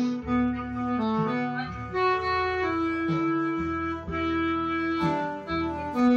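Slow Taiwanese-style ballad music: a held melody that moves in steps, in a reedy wind-instrument sound, over bass and chordal accompaniment.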